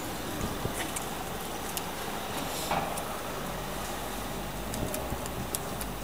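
Street traffic noise: a steady hum of cars, with a low engine drone coming in about halfway through, and a few light clicks and rustles.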